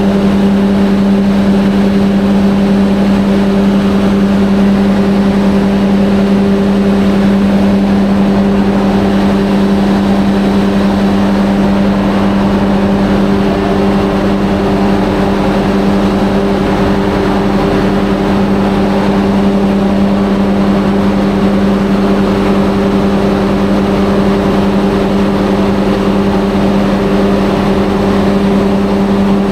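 Large 1250 kVA generator set's diesel engine running steadily at constant speed, a loud even drone with a strong steady low hum.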